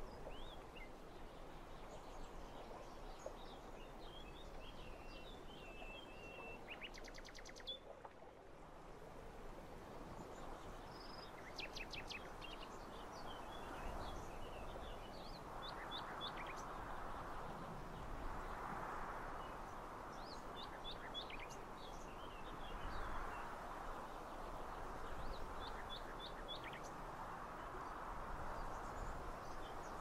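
Open-country ambience: a low rushing hiss that swells and fades in slow waves through the second half, with small birds chirping on and off above it and a short, fast ticking trill about a quarter of the way in.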